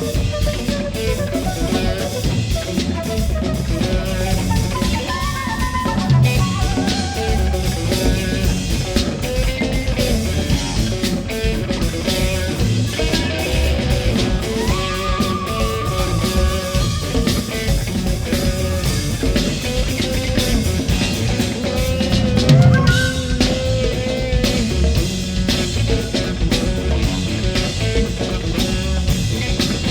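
Live rock band playing an instrumental passage on drum kit and electric guitar, with a steady beat and sustained guitar notes.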